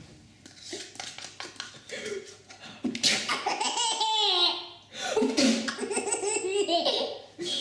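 A baby laughing heartily in two loud bouts, the first starting about three seconds in and the second about a second later.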